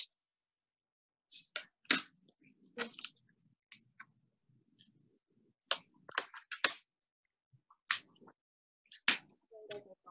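Small cut-glass pieces clicking and tapping as they are set down and moved about on a glass base sheet. The clicks are short and irregular and come in small clusters, with light handling rustle between them.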